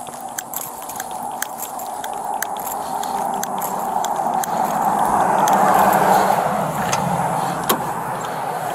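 A vehicle driving past on the road, its engine and tyre noise swelling to a peak about six seconds in and then fading, with a few small clicks and knocks over it.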